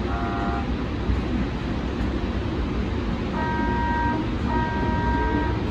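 Siemens light-rail trolley running along the track with a steady rumble. A brief multi-tone warning toot sounds at the very start, and from just past halfway a steady multi-tone warning sound comes in long pulses of about a second each.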